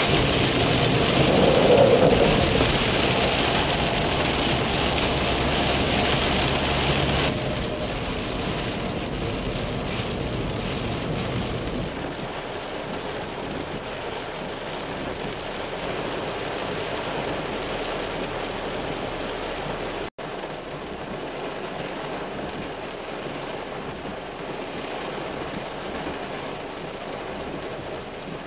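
Heavy rain pouring steadily. For the first several seconds it is heard from inside a moving vehicle, louder and with a low rumble of road and engine noise under the rain, then it changes to a steady, quieter downpour.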